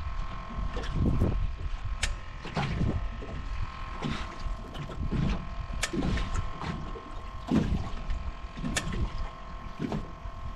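Choppy wind-driven waves slapping and knocking against the hull of an aluminium jon boat, in irregular thumps about every second, over a steady faint high hum.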